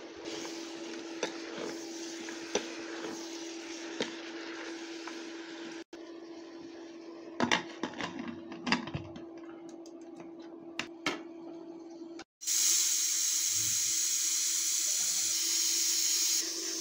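Meat and onions sizzling in an open pressure cooker over a steady induction-hob hum. After a cut come several metal clicks and knocks as the cooker's lid is handled. After another cut, steam hisses loudly and steadily out of the closed pressure cooker's valve for about four seconds.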